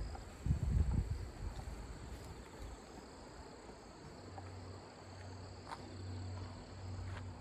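Crickets chirring steadily at two high pitches. A couple of low rumbles come in the first second, and from about halfway a faint, low pulsing hum joins in.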